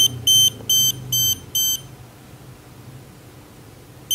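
Habotest HT90 non-contact voltage tester pen beeping at a live power-strip socket, signalling that it detects mains voltage: a run of short, high, even beeps, about two a second, that stops about two seconds in.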